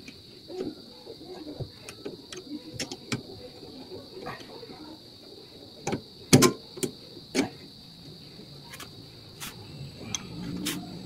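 Scattered metallic clicks and knocks as a suspension bolt and hand tools are handled under the car, with a few louder knocks just past the middle. Crickets chirr steadily throughout.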